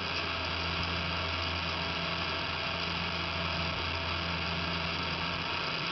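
A steady low hum under a constant even hiss.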